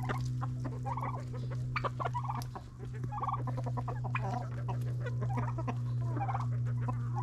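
Chickens clucking softly while pecking at banana peels, with many short clucks and sharp pecking clicks. A steady low hum runs underneath.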